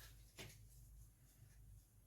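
Near silence with one light knock about half a second in, as of a knife meeting a cutting board while pears are cut.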